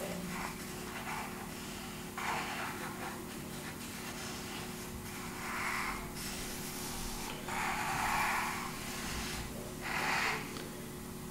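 A person breathing through the nose, four soft exhales a few seconds apart, over a steady faint hum.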